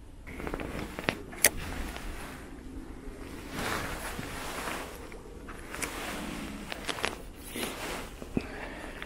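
Close handling noise of an angler's clothing and float rod and reel: irregular rustling in several bursts while the hook is baited and the rod is swung out to cast, with a few sharp clicks, the loudest about one and a half seconds in.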